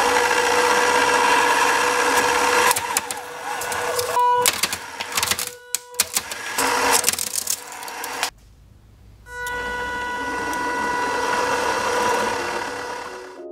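3D-printed shredder running, its motor and printed gearbox giving a steady whine. Through the middle come loud, irregular cracks and snaps as it bites into material. It stops briefly about eight seconds in, then runs again with the same whine.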